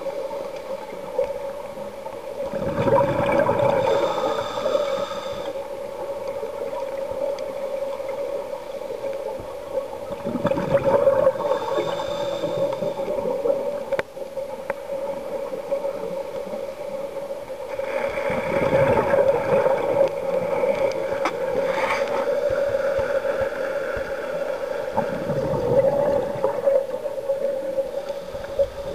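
Scuba regulator breathing underwater: exhaled bubbles rush out four times, about every seven seconds, over a steady hum.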